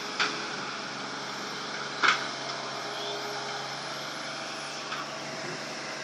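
Excavator engine running steadily while digging, with two sharp knocks: one just after the start and a louder one about two seconds in.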